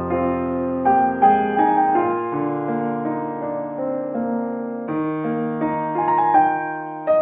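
Background piano music, slow and gentle, with soft chords and melody notes.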